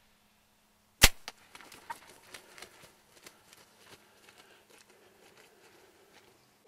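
Bow shot at a wild turkey at close range: one sharp, loud snap of the bowstring as the arrow is loosed about a second in, followed by faint scattered clicks and rustles.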